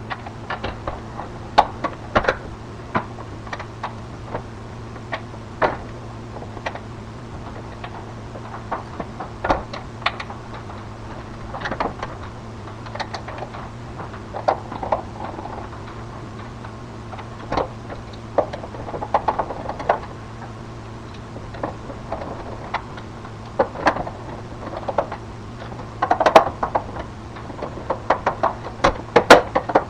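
Irregular light clicks and knocks, scattered through and thicker near the end, over a steady low electrical-sounding hum.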